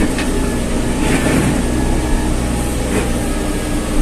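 Backhoe loader's diesel engine running steadily under work, with a few light knocks.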